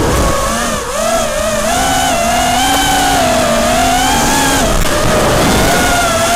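Brushless motors and tri-blade propellers of a 5-inch FPV racing quadcopter (Emax 2205 2300 kV motors) whining in flight, the pitch rising and falling with the throttle, with a brief dip about a second in.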